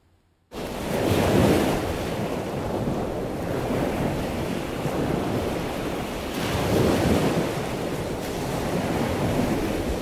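Rushing, churning water noise heard under water from the submarine, starting abruptly about half a second in and swelling at moments.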